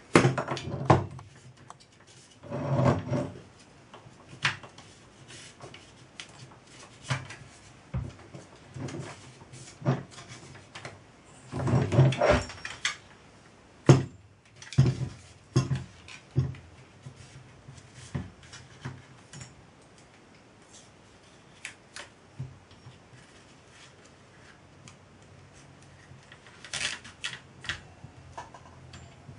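Irregular knocks, taps and rubbing from a small metal model traction engine being turned over and set down on a wooden workbench, with louder clusters of clatter about three and twelve seconds in and a single sharp click soon after.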